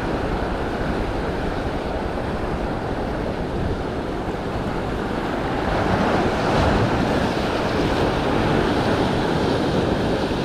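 Sea surf breaking and washing over shoreline rocks close by, swelling louder about two-thirds of the way through, with wind buffeting the microphone.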